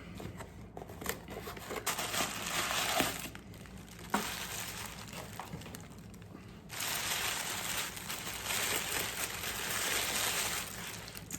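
A package being opened by hand: paper and packing material crinkling and rustling in two long stretches, with a few sharp clicks in between.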